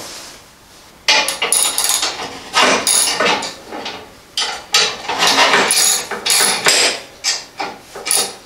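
Metal parts of a Greenworks 80V two-stage snowblower's chute control clanking and rattling as it is worked by hand: a dozen or so irregular knocks and scrapes, starting about a second in.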